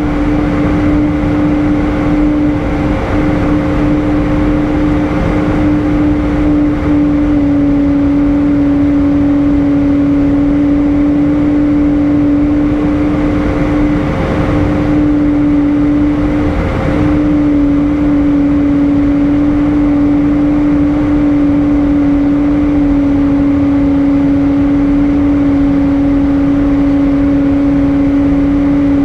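Airbus A320 cabin noise in flight: a steady rush of engine and airflow noise with a constant droning hum, which drops slightly in pitch a couple of times.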